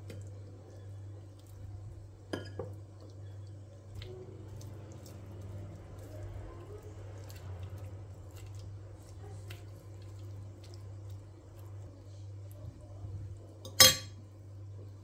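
Boiled chicken thighs being pulled apart by hand on a ceramic plate: faint, scattered soft tearing and small clicks of meat and skin against the plate, over a steady low hum. A single sharp clack rings out near the end.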